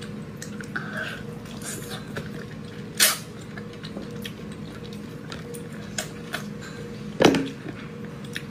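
Close-miked chewing and mouth sounds of eating braised pig's trotters: soft wet clicks and smacks, with two louder smacks about three seconds in and about seven seconds in, over a faint steady hum.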